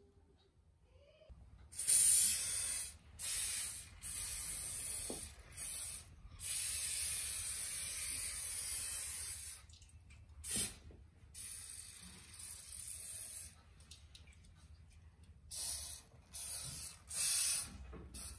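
Aerosol olive oil cooking spray hissing in a series of short and long bursts as it coats round aluminium baking trays.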